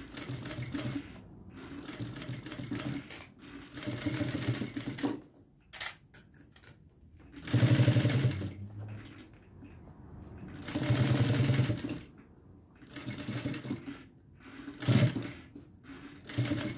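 Industrial sewing machine stitching in short runs of up to a second or two, stopping and starting about seven times as the bag is turned and repositioned under the foot; the loudest runs come about eight and eleven seconds in.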